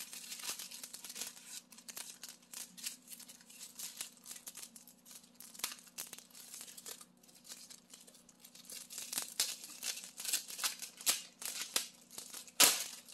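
Crinkling and crackling of a cellophane gift bag being handled while its sticker seal is picked at, the crackles coming thicker in the second half, then one loud ripping tear near the end as the bag is torn open.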